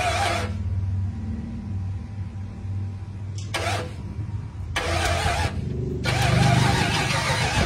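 Ford 302 small-block V8 in a 1987 Ford Ranger running on a cold start. Its note surges briefly three times and is louder and steadier from about six seconds in.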